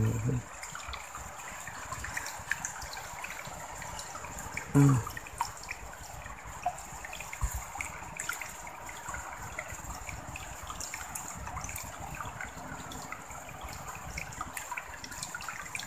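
Small stream trickling steadily over tree roots and a fallen log, with scattered small ticks and splashes. A brief low vocal grunt about five seconds in.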